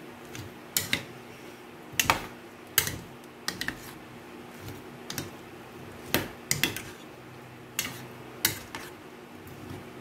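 A fork clicking and scraping against a bowl at irregular moments, a dozen or so sharp knocks, as sweet potato strips are tossed and coated in thick batter.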